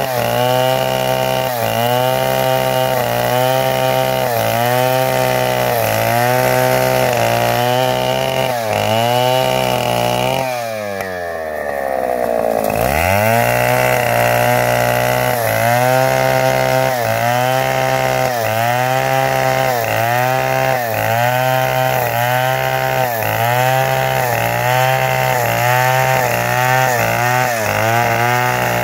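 Chainsaw running at high revs, its pitch sagging about once a second as it takes load in repeated cutting strokes through wood. About ten seconds in the engine falls steeply toward idle, then revs back up a couple of seconds later and the rhythmic cutting resumes.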